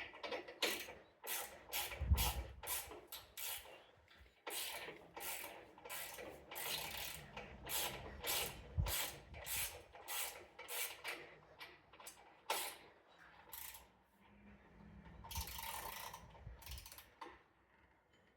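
Hand ratchet wrench clicking in runs of quick strokes as bolts are tightened down, with a couple of short pauses.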